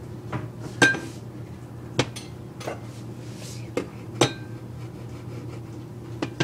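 Small handling clatter: a metal spoon clinking and a plastic squeeze bottle of chocolate syrup knocking, about half a dozen separate sharp clicks spread over a few seconds. One clink about a second in rings briefly.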